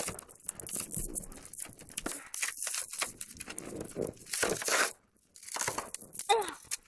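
Packaging being torn and crinkled by hand in irregular strokes, with a short pause about five seconds in. A brief vocal exclamation comes near the end.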